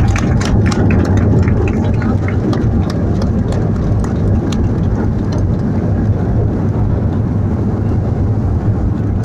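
Airliner cabin noise on the landing roll just after touchdown: a loud, steady rumble of engines and wheels on the runway. Sharp rattling clicks come through in the first few seconds and thin out by about the middle.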